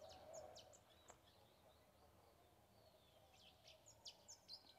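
Faint, short bird chirps over near silence: a few in the first second, then a quicker cluster near the end.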